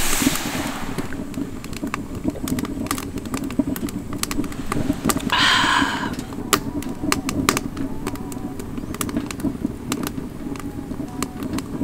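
Wood-burning stove fire crackling, with scattered sharp pops and clicks over a steady low hum; a short breathy rush of noise comes about five and a half seconds in.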